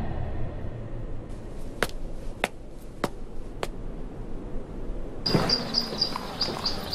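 Four sharp clicks, evenly spaced about half a second apart, over a faint low hum; then, about five seconds in, rapid high-pitched birds chirping begin and keep repeating.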